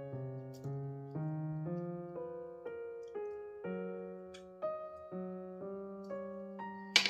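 Background piano music, a slow line of single notes at about two a second. A sharp click comes right at the end.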